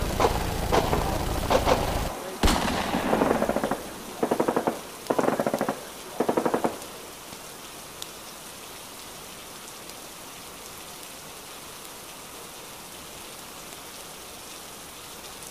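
Battle sound with single cracking shots over a low rumble, then about four short bursts of machine-gun fire between about two and seven seconds in. After that only a steady hiss remains.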